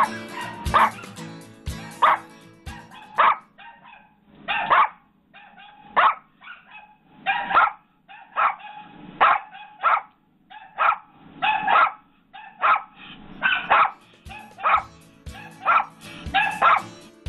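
Yorkshire terrier barking over and over in short, sharp, high yaps, about one a second: the persistent barking that is the breed's well-known problem.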